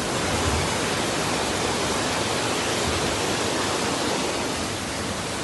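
Muddy flash-flood water rushing down a city street in a torrent: a steady, unbroken rush of water.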